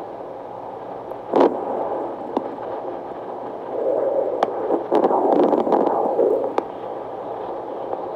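Handheld fetal Doppler's speaker hissing with static as the probe is moved over a pregnant belly. It swells into a louder whooshing from about four to six and a half seconds in, with a few sharp clicks along the way.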